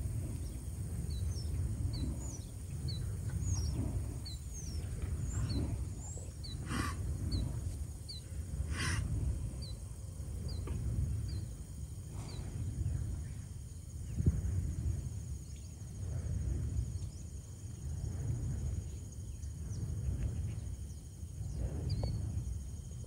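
Low wind rumble on the microphone, swelling and fading about every two seconds, while a small bird chirps over and over, about twice a second, through the first half. Two longer, higher bird calls come near the middle.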